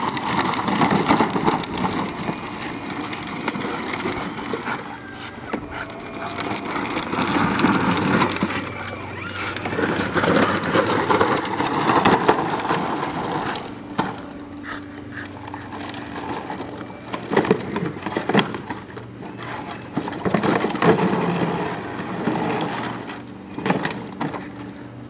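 Power Wheels toy jeep rolling over asphalt, its hard plastic wheels rattling and grinding on the road surface. It is louder for the first half, then quieter and steadier.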